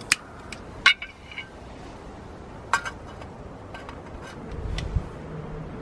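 A few sharp metal-on-metal clinks and taps, some with a short ring, from a lighter against an alcohol stove's metal pot stand and a metal sandwich pan being set down on it. The loudest clink comes about a second in, with smaller taps later.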